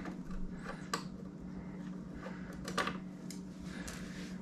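Scattered light clicks and taps of a hand tool working the quick-release Allen fasteners on a motorcycle's plastic fairing, over a steady low hum.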